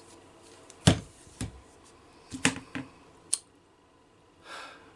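A few sharp clicks and knocks of hard objects being handled, about six in two and a half seconds with the loudest first, then a short soft hiss near the end.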